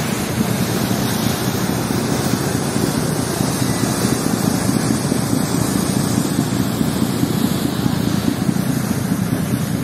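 Steady low drone of a river passenger launch's engines under way, mixed with the rush of its wake churning along the hull and wind buffeting the microphone. The engines are running at about 600 rpm.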